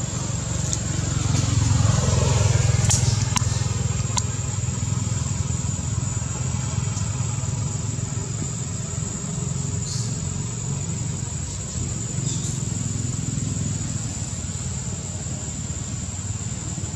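Motor vehicle engine rumbling steadily, swelling about two seconds in with a falling pitch as a vehicle passes. A steady high-pitched tone runs underneath, with a few faint clicks.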